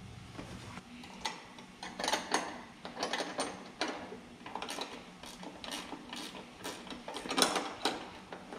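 Irregular metal-on-metal clicking and clinking as a new door hinge pin and its hardware are worked into a GM pickup's door hinge by hand. The loudest clink comes near the end.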